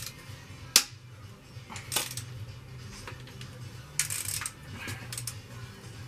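Hand tools and loose metal parts clinking on the cylinder head of a diesel engine under teardown: a sharp clink about a second in, another near two seconds, and a quick run of clicks around four to five seconds.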